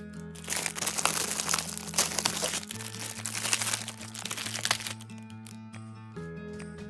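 Plastic packaging crinkling and crackling as it is handled, stopping about five seconds in, over background music with sustained notes.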